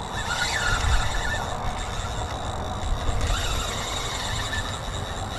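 Fishing reel's drag buzzing steadily as a hooked stingray pulls line off, over a steady low rumble.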